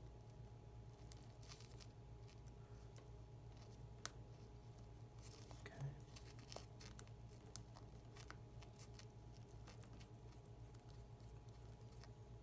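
Faint clicks and small scrapes of watchmaker's tools on watch parts, with one sharper click about four seconds in, over a steady low hum.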